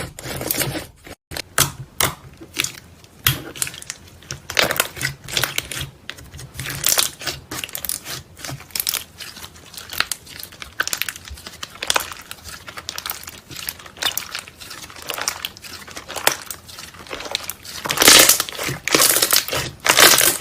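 Slime being squeezed and pressed by hand, making irregular crackling, crinkling clicks and pops, denser and louder near the end.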